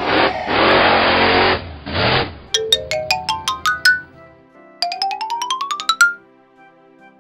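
Cartoon sound effects over a children's music track: a loud noisy rush lasting about two seconds, then two quick rising runs of short, bell-like struck notes, the second ending about six seconds in, leaving soft background music.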